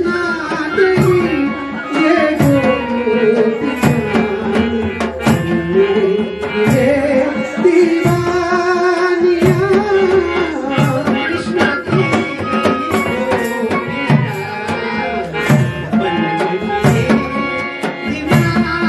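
Live Himachali folk dance music: a hand drum keeps a rhythm under a sustained melody that glides up and down.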